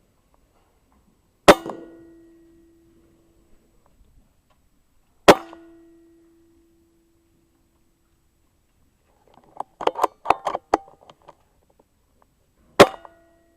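Three air rifle shots, each a sharp crack followed by a short ringing tone; the first two come about four seconds apart, the third near the end. Between the second and third shots there is a quick run of metallic clicks.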